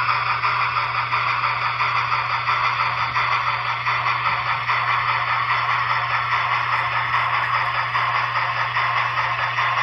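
Steady running sound of a model steam train: an even rushing hiss with a low hum beneath it.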